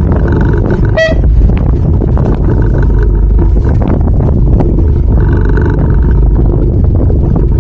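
A fishing boat's engine running under way, loud and steady, with wind rushing on the microphone. A brief high chirp about a second in.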